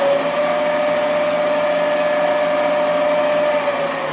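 Hammond CBW-6 chip breaker and cup wheel grinder's 1 HP three-phase main motor running and spinning both grinding spindles: a loud, steady whine over a rushing hiss, easing slightly near the end.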